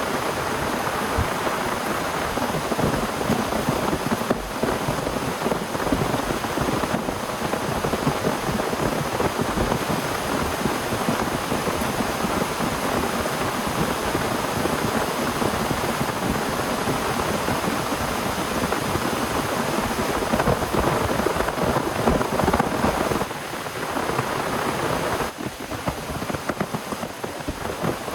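Heavy rain falling steadily, easing briefly twice near the end.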